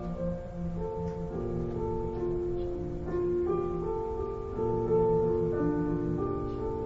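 Piano playing a slow, gentle melody of held notes.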